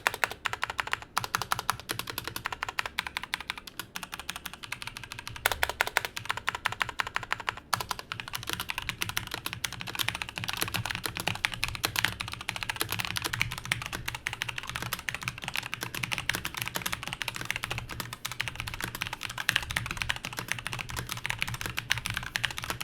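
Cooler Master CK532 mechanical keyboard being typed on: a fast, continuous run of key clicks.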